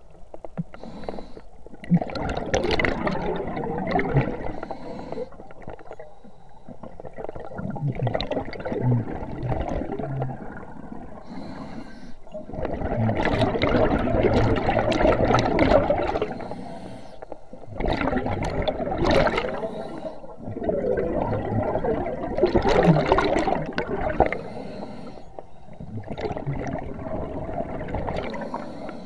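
Scuba diver breathing through a regulator underwater: bursts of bubbling as each breath is exhaled, about every four to five seconds, with quieter gaps between.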